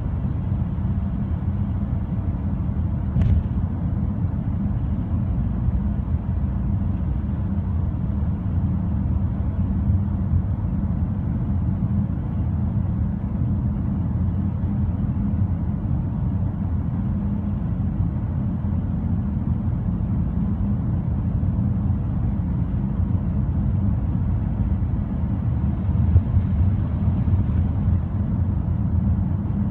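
Car being driven, heard from inside the cabin: a steady low rumble of road and engine noise, with one brief click about three seconds in.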